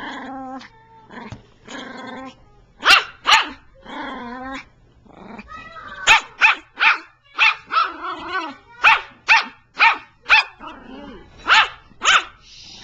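Small dog growling, then barking in short, sharp barks: two near three seconds in and a quick run of a dozen or so from about six seconds in.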